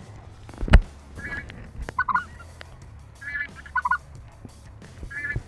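Geese honking: five short calls about a second apart, alternating higher and lower. A single sharp thump comes about three-quarters of a second in.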